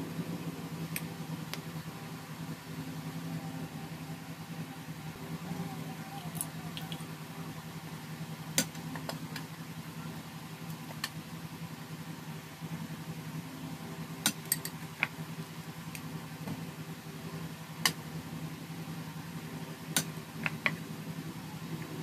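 Scattered light clicks and taps of a spoon against small dessert cups and bowls, a dozen or so spread irregularly, over a steady low hum.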